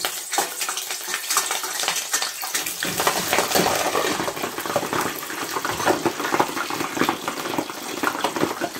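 Cauliflower florets deep-frying in hot oil in a stainless-steel kadai: a dense crackling sizzle that grows louder and fuller about three seconds in.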